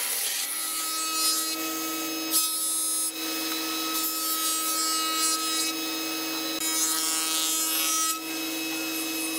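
Spindle moulder running with a steady hum while a board is fed past its cutter. The rasping cutting noise swells and falls back several times as the wood goes through.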